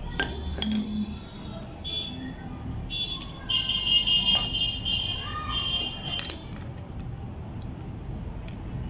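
Metal clinks and knocks as a pipe wrench is fitted to a brass ball valve and handled on a concrete floor. A high, steady whistle-like tone sounds from about three to six seconds in, over a low background hum.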